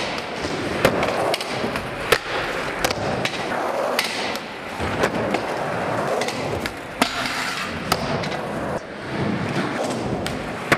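Skateboard wheels rolling over a concrete floor with a steady rumble, broken by several sharp clacks of the board striking the ground, the first about a second in as the skater comes off a rail.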